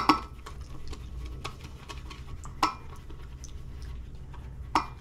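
Shaving brush worked round a stainless steel shave bowl to whip shaving cream into lather: light ticking and swishing against the metal, with three sharper clinks at the start, about two and a half seconds in, and near the end.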